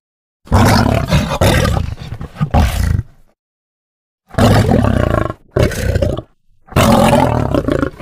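Recorded tiger roars, loud and growly, in three bursts: a long one, then after a silent gap of over a second two shorter ones close together. The roars are a recording, not a live animal.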